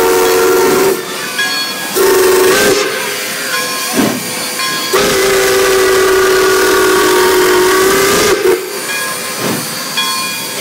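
Steam whistle of Pere Marquette 1225, a 2-8-4 Berkshire locomotive, blowing loud blasts: the tail of one blast, a short one, then a long held one, a long–short–long pattern that fits the end of the grade-crossing signal. A few single exhaust chuffs and steam hiss come between the blasts.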